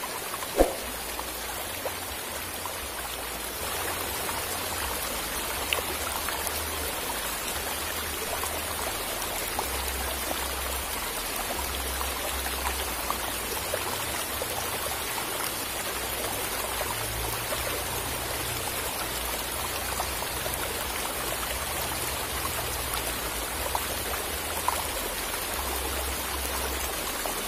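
Steady rushing hiss of flowing stream water, with an uneven low rumble underneath.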